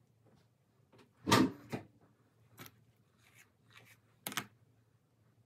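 A few brief rustles and soft knocks from hands handling hair, the loudest about a second in.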